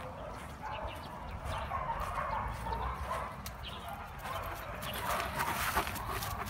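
Dogs barking repeatedly over a low rumble.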